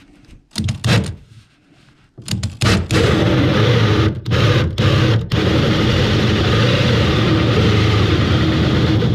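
Power drill driving a hole saw, cutting through a scrap-wood template into the boat's fiberglass to enlarge a cupholder hole. A short burst, then a steady cut with a motor hum, stopping briefly three times between about four and five and a half seconds in.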